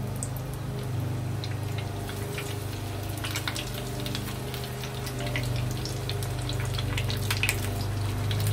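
Battered squid rings sizzling and crackling in hot oil in a frying pan as more pieces are dropped in, the crackling growing busier from about three seconds in. Underneath runs the steady low hum of a lawn mower engine.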